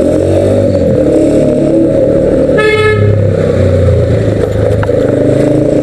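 Motorcycle running along at riding speed with a steady low rumble, and a vehicle horn beeping once, briefly, about halfway through.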